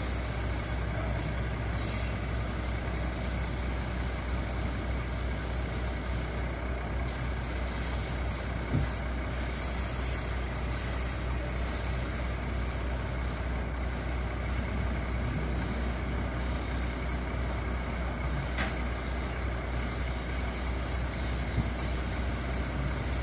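Towable portable air compressor's engine running steadily, a low even drone, while it supplies air to a paint-spray line.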